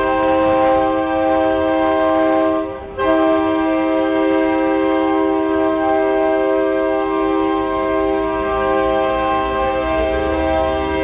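A GP38-2 diesel locomotive's multi-note air horn sounds a long, loud chord, breaks off briefly about three seconds in, then sounds again and holds.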